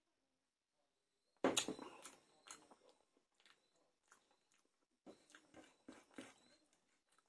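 Close-miked eating sounds: a sudden knock about a second and a half in, then scattered wet chewing and mouth clicks as rice and fish are eaten by hand.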